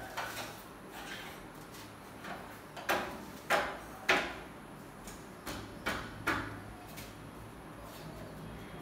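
Sharp knocks and clacks on a window frame being fitted, coming irregularly, with three louder ones about half a second apart in the middle and lighter ones after.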